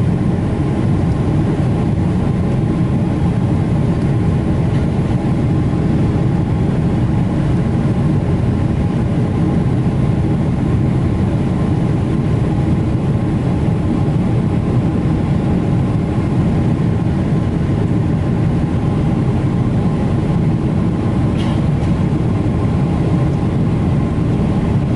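Steady drone of engine and airflow noise inside a Boeing 777-300ER's passenger cabin in flight, strongest in the low range with faint steady hums above it.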